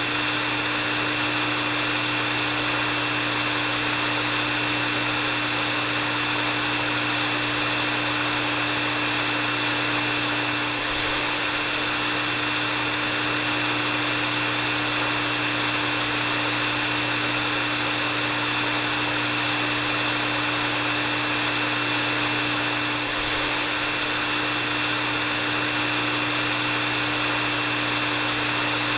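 Hair dryer running steadily: an even rush of blown air with a low motor hum and a thin high whine over it.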